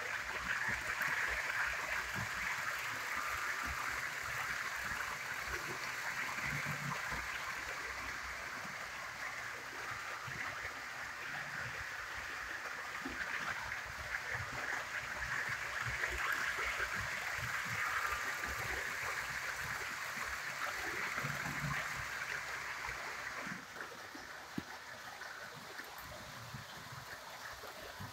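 HO-scale model train, an FS E444 electric locomotive hauling passenger coaches, running on the layout track: a steady rolling hiss of wheels on rails with a faint motor whine and irregular light clicking. It gets quieter for the last few seconds.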